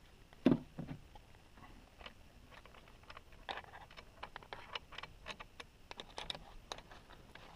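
A single thump about half a second in as a multi-tool is set down, then a run of light clicks and taps as a bicycle saddle's metal rails are worked into the clamp head of a RockShox Reverb dropper seatpost.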